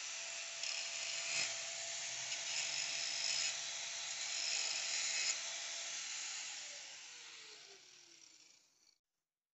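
Handheld electric angle grinder working on a steel bracket under a truck body: a steady grinding noise with a motor whine. About six seconds in it is switched off and winds down, the whine falling in pitch until it stops.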